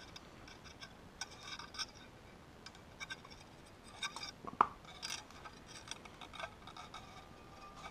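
Small screwdriver tightening the negative post screw on a rebuildable dripping atomizer deck: faint metallic clicks and scrapes, with one sharper click a little past halfway.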